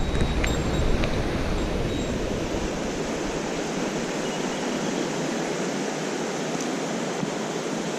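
Mountain stream rushing steadily. A low rumble of wind on the microphone fades out about two and a half seconds in.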